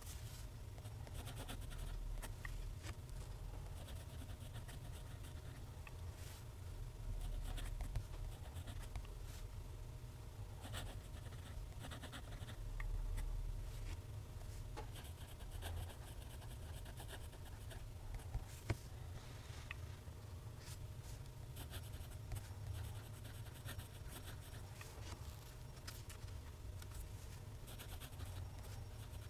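TWSBI ECO fountain pen nib scratching faintly across Clairefontaine paper in runs of cursive strokes, with two sharp ticks, over a steady low hum.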